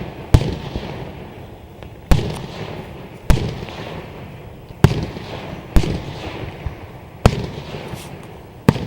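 Aerial fireworks shells bursting in a display: about seven sharp booms, one to two seconds apart, each trailing off in a fading echo.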